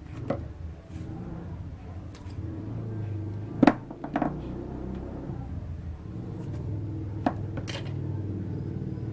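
Sharp clicks and taps from masking tape and hand tools being handled on a tiled surface, the loudest about a third of the way in, over a steady low hum.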